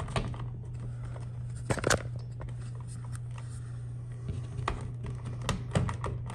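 Scattered plastic clicks and scrapes as a smoke detector is turned against its mounting base, trying to twist it into place. Underneath runs a steady low hum.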